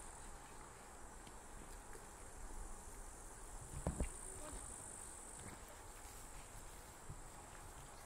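Faint, steady high-pitched chirring of insects in the grass, a little weaker after about five seconds, with a couple of soft thumps about four seconds in.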